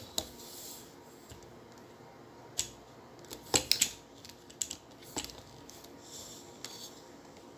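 A few scattered light clicks and taps from handling a metal extendable tripod as its sections are pulled out and its lock is worked.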